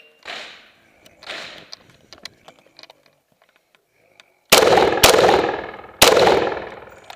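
M1 rifle firing three loud shots, the second about half a second after the first and the third about a second later, each with a long ringing tail. Two fainter bangs come in the first second and a half.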